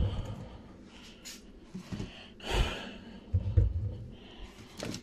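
Loud, heavy breathing through a clogged nose, with a strong noisy breath about two and a half seconds in. Plastic soda bottles are handled and set down on a counter, making dull thumps a little after the middle.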